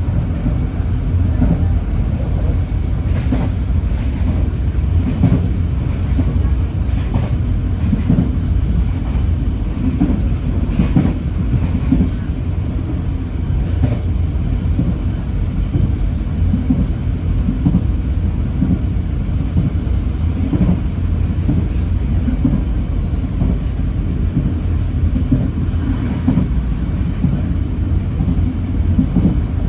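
Train running along the track, heard from inside a passenger carriage: a steady low rumble with irregular clacks of the wheels over the rails.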